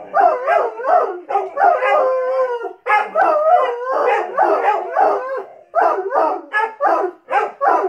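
Irish wolfhound howling in a long run of short calls that rise and fall in pitch, two or three a second, with one longer held call about two seconds in.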